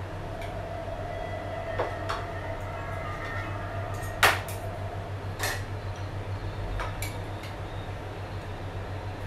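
Forks and spoons clinking against plates while eating: a few scattered clicks, one sharper than the rest about four seconds in, over a steady low hum.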